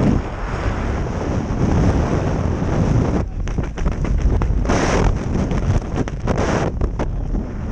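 Airflow rushing over an action camera's microphone during a tandem parachute descent under canopy. A steady, dense rush eases about three seconds in, then returns in short gusts twice as the canopy comes in to land.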